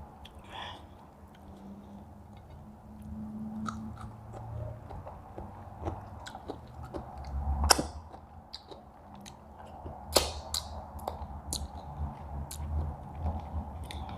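Close-up eating: chewing and biting food, with scattered sharp crisp clicks, the loudest about eight and ten seconds in, over a low steady hum.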